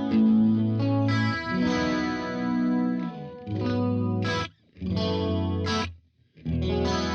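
Distorted electric guitar chords played through a Blackstar Studio 10 6L6 valve amp with the gain cranked, the chords changing about once a second and ringing out. The playing stops briefly twice, about four and a half and six seconds in.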